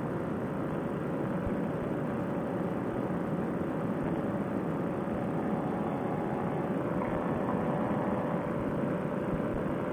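Paramotor trike's Fresh Breeze Monster engine and propeller running steadily in cruising flight: a constant drone with a steady hum, over rushing air.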